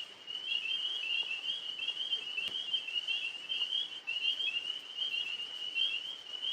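Chorus of tree frogs calling: an unbroken run of short, high chirping notes repeating several times a second. A single faint click about halfway through.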